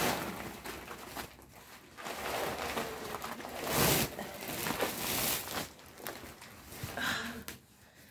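Rustling and crinkling of a large woven plastic sack being handled and pulled open, in irregular bursts, loudest about four seconds in.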